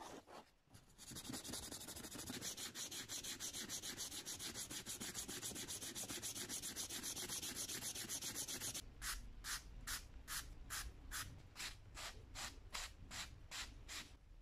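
Sandpaper rubbed by hand over a black plastic hand-plane handle in quick, even back-and-forth strokes. About nine seconds in, the strokes change to slower separate rasps, about two or three a second, as the plane's round knob is sanded.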